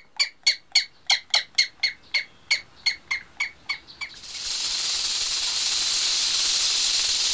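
A falcon's rapid, harsh cackling call, a run of short 'kak' notes at about three to four a second that slow and fade away over the first four seconds. A steady hiss like rushing air then takes over.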